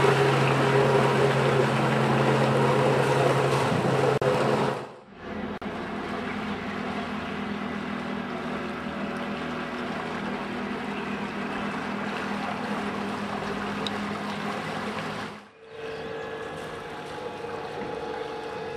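Electric bow thrusters on sailboats running steadily with a hum and churning water, in three takes cut apart by brief fades about 5 and 15 seconds in. The first, a 3.1 kW tunnel thruster, is the loudest and lowest-pitched. A 3.0 kW retractable thruster follows, quieter. Last comes a 1.8 kW EXTURN 180 external thruster with a higher hum.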